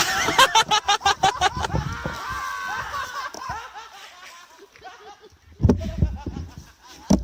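A group of people laughing in quick bursts, dying away after about three seconds. A loud low thump comes about five and a half seconds in, and a shorter one near the end.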